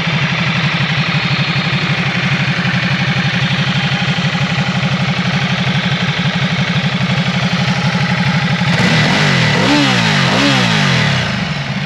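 Ducati Multistrada 1200 S's 1198 cc L-twin, fitted with an Akrapovič slip-on exhaust, idling with a steady pulse, then revved up and back down twice near the end.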